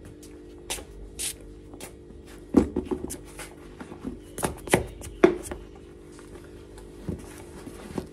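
A pair of black boots handled and set down on a concrete floor: a run of knocks and thuds, loudest about two and a half and five seconds in, with rustling as a socked foot is worked into a boot.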